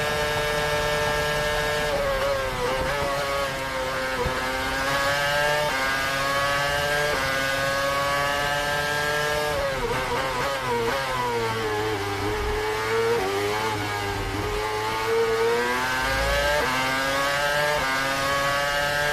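Formula 1 car engine heard onboard at high revs. Its pitch holds steady at first, then drops and climbs again and again through gear changes, sinking lowest about halfway through before revving back up.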